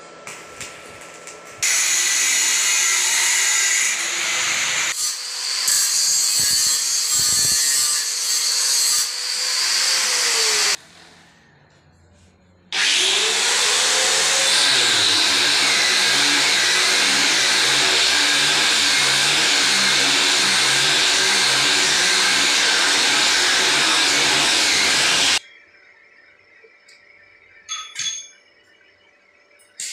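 Electric angle grinder running against stainless steel railing parts in two long runs, a steady high whine over a coarse hiss. It winds down and stops about eleven seconds in, then spins back up two seconds later. After it stops near the end there are a couple of brief knocks.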